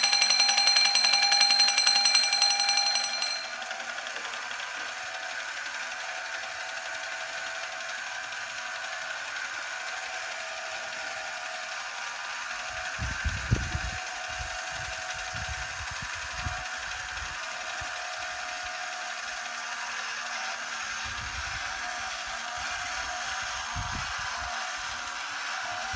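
Battery-operated tin toy alarm clock (1964 Timmy O'Clock): its alarm bell rings in a rapid, loud trill for about three seconds, then stops. The battery motor and gears then run with a steady whir as the toy waves its arms and walks, with a few soft knocks now and then.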